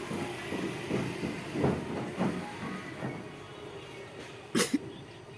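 A woman's breathy, snuffling nose and mouth sounds as she tickles inside her nose with rolled paper trying to make herself sneeze: short breaths about every half second, fading, then one loud sharp burst of breath about four and a half seconds in. No sneeze comes.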